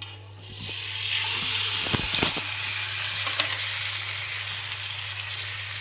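Marinated lamb sizzling on a hot ribbed grill pan as it is laid down. The sizzle starts about a second in and then holds steady, with a few knocks of the tongs against the pan around two seconds in.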